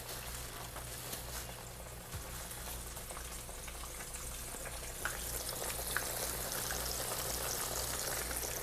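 Cornmeal-coated catfish deep-frying in hot oil at about 350 degrees: a steady sizzle with scattered small pops, growing slightly louder about halfway through.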